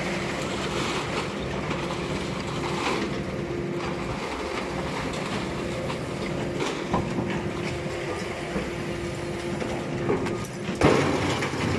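Hydraulic scrap-metal baling press running with a steady hydraulic hum as its pressing block lifts and a hinged chamber lid swings open. There is a louder burst of noise near the end.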